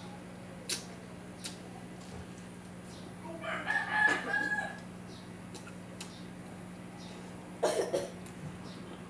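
Rooster crowing once, a held call of about a second and a half near the middle.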